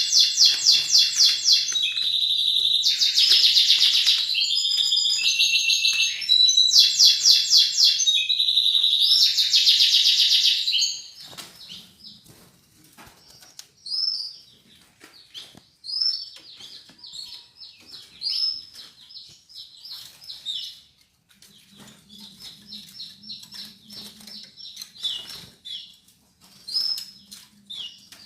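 Canary singing loud, rapid trills for about the first eleven seconds, then breaking into softer short chirps and calls with scattered light clicks and flutters.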